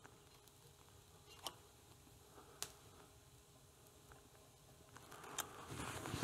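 Near silence with a few faint clicks and taps, then a soft hiss building near the end.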